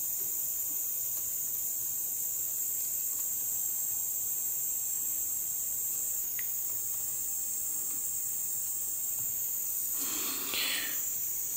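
Steady high-pitched background hiss, with a brief scraping rustle about ten seconds in as the soldering iron and wire are moved at the transformer's terminal lugs.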